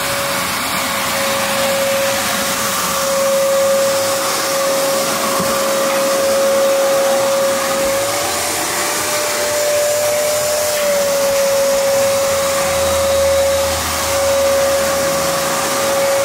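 Electric vacuum cleaner running steadily, a high motor whine over a rush of air. Its pitch rises slightly about eight seconds in and drops back about three seconds later.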